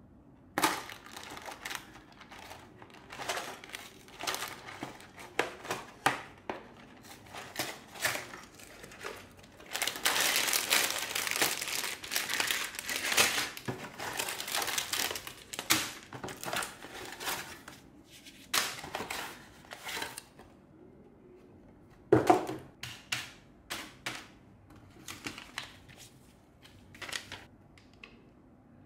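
Unboxing rustle of a Lego set: the cardboard box handled and opened, then plastic bags of Lego pieces crinkling, densest and loudest for about five seconds in the middle. There is a sharp knock about two-thirds of the way through, and paper instruction pages rustle near the end.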